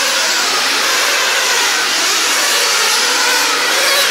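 Radio-controlled nitro sprint cars' small two-stroke glow engines buzzing steadily at high revs as the cars race.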